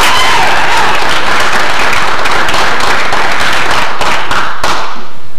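Applause: a room full of people clapping steadily, dying away a little before the end.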